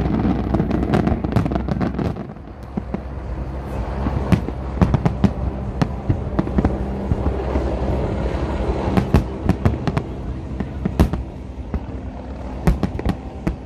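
Large aerial fireworks display: a rapid, continuous barrage of shell bursts, sharp bangs and crackling over a low rumble.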